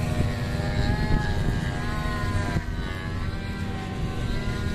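Engine of a radio-controlled P-51 Mustang model, an OS model-aircraft engine, running steadily in flight overhead, its pitch shifting slightly as the plane moves.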